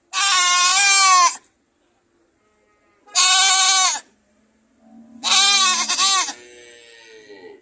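Goat screaming: three loud, wavering bleats of about a second each, separated by short silences, the third followed by a fainter, lower call near the end.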